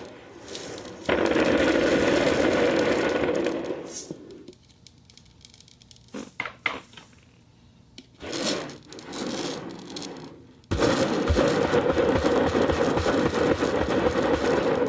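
Ceramic balls clattering and rolling against one another in a dense, continuous rattle, which stops about four seconds in. A few separate clicks and short rolls follow, then the dense rattle starts again at about eleven seconds.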